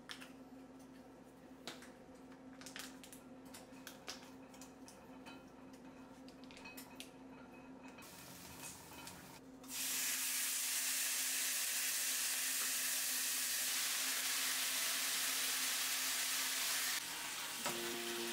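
Light clicks and taps as marinated beef is mixed with a wooden spoon in a stainless steel bowl. About ten seconds in, the sliced beef hits a hot nonstick wok and sizzles loudly and steadily.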